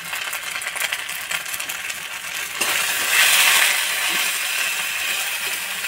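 Ginger-garlic paste and ground spices frying in hot oil in a metal wok, sizzling as a metal spatula stirs and clinks against the pan. About two and a half seconds in, the sizzle grows suddenly louder, then slowly eases.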